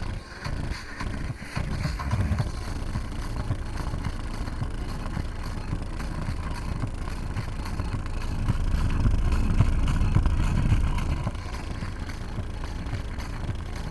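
Subwoofer playing deep, pulsing bass heavy enough to overload the microphone into a rumble, with a louder stretch in the middle.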